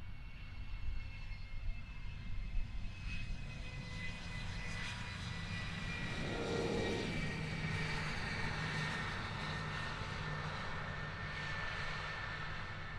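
Jet engines of a MiG-31, its twin D-30F6 afterburning turbofans, running on the runway: a steady rumble with high turbine whine tones, swelling slightly about halfway through.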